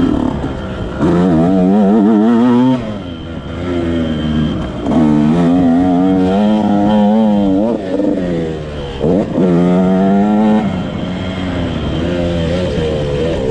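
Motocross dirt bike engine under hard throttle in three long pulls, about a second in, about five seconds in and about nine seconds in, with the pitch wavering. It drops back to a lower, quieter run between the pulls.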